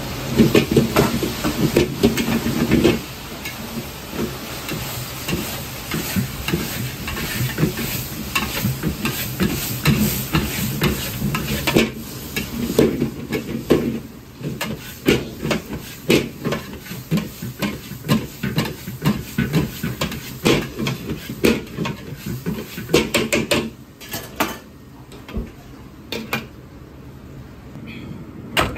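Metal ladle knocking and scraping against an iron wok, with sizzling underneath, as chicken and shredded negi are stir-fried in seasoning oil over high heat. The strikes come a few times a second and mostly stop about four seconds before the end.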